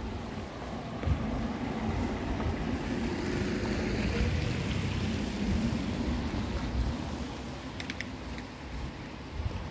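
Wet-street ambience: tyre hiss from a car on the wet road swells and fades over the middle seconds, over a low rumble of wind on the microphone.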